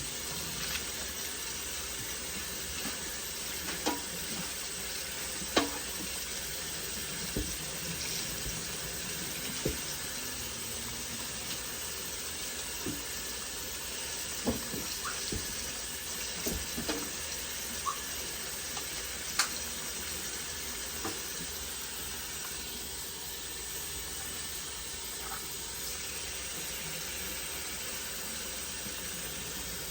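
Tap water running steadily into a sink as wigs are rinsed under it, with a few short knocks and splashes scattered through.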